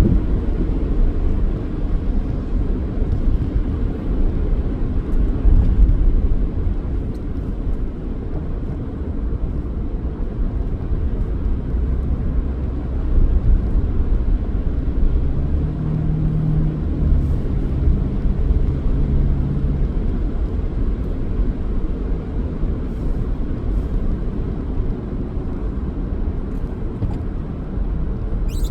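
Car driving on city streets: a steady low rumble of engine and road noise, with a low droning tone that holds for about five seconds midway through.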